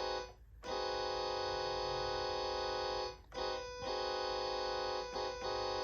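Electronic keyboard holding a five-note chord (C, E-flat, F-sharp, A-flat, B) to imitate a Nathan K5LLA five-chime train horn. It sounds in blasts: a long one after a brief gap near the start, then a short one, another long one, and several shorter blasts with quick breaks between them near the end.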